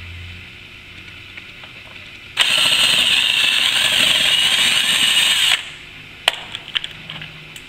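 Hitachi cordless drill/driver running for about three seconds, backing out a Phillips-head screw from the plastic lower front grille, with a steady motor whine that starts and stops abruptly. A few light clicks follow near the end.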